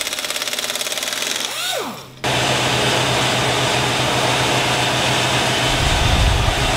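A power tool running with a rapid, even buzzing rhythm, winding down with a falling whine about two seconds in and cutting off sharply. It is followed by a steady, loud rushing noise of shop machinery with a low hum, which gets deeper near the end.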